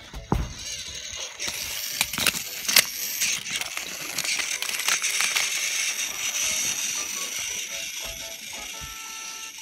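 Motorised toy train running along plastic track close to the microphone, a busy mechanical rattle with a few sharp clicks about two to three seconds in. Music plays faintly underneath.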